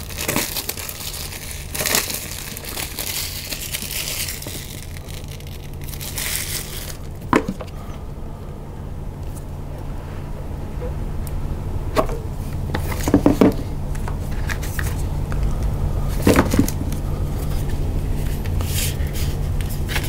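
Smartphone packaging being handled and opened by hand: paper and cardboard rustling and crinkling, with a few light knocks and clicks, over a steady low hum.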